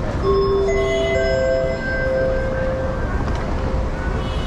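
A chime of several clear bell-like tones entering one after another, each ringing for a second or two, over a steady low rumble of traffic.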